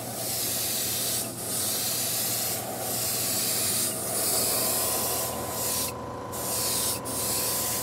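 Iwata gravity-feed airbrush spraying a heavy coat of cold glaze: a steady hiss of air and spray, broken by short pauses about every second or so as the trigger is let off, with a longer pause about six seconds in.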